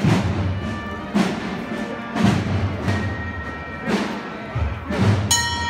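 Slow Holy Week processional march music: a deep drum beat about once a second under held wind notes, with a bright, high held note coming in near the end.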